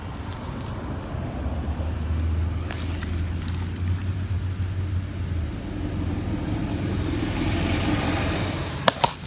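A vehicle running with a steady low rumble, with two sharp knocks close together near the end.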